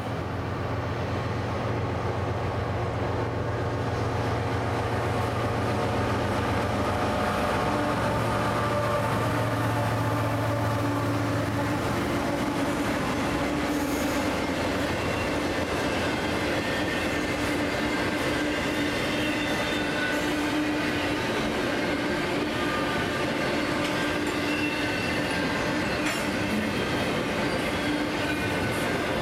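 CSX double-stack container train passing. The diesel locomotives' engine drone is heard for about the first twelve seconds, then the steady rumble of the container cars' wheels on the rails, with a thin wheel squeal.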